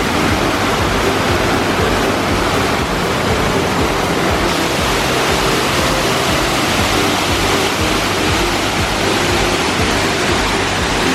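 Upper Dunn Falls, a waterfall, rushing with a loud, steady roar of falling water.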